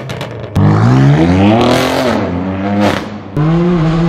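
Straight-piped BMW M4 F82's twin-turbo inline-six with an AWE Track exhaust, revving hard under acceleration: it comes in suddenly about half a second in and climbs in pitch, then drops off briefly around three seconds in before picking up again.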